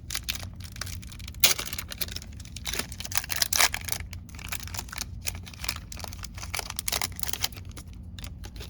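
Handling of a foil trading card pack and its cards: a run of small crinkles, rustles and clicks, loudest about one and a half seconds in and again around three and a half seconds.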